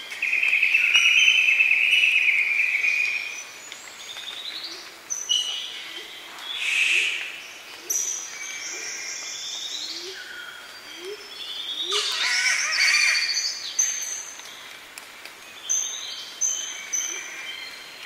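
Rainforest morning bird chorus with calls of spotted catbirds and Lewin's honeyeaters. A loud warbling call opens and lasts about three seconds. Harsh rasping calls come about seven and twelve seconds in, over short high chirps and a low note repeated about once a second through the middle.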